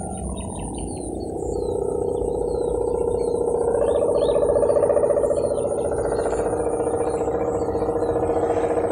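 Sendaren kite hummer of the 'mesin brujul' style droning in the wind on a flying winged kite: a steady, wavering hum that swells louder after a second or so. Faint bird chirps sound above it.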